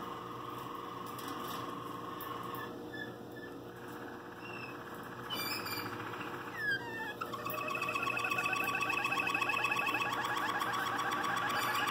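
Waterslager canary singing: a held low note at first, then short varied notes and glides, and from about seven seconds in fast repeated trills with a steady higher whistle held over them for a few seconds.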